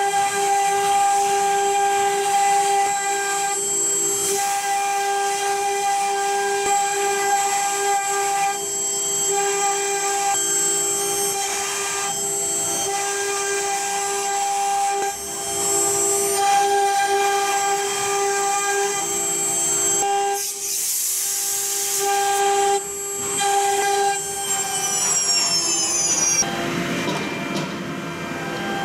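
Electric spindle of a 1325 stone CNC router engraving a pattern into a stone slab: a steady high whine with cutting noise, dipping briefly a few times. Near the end the whine slides down in pitch.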